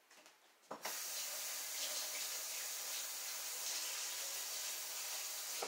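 Kitchen sink faucet running in a steady stream while hands are rinsed under it; it is turned on just under a second in and shut off abruptly near the end.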